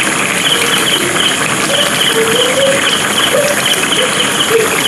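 Vegetable curry bubbling and sizzling steadily in a kadai as fried fish pieces are laid into it. Over it, an insect chirps in short, regular pulses, about two a second.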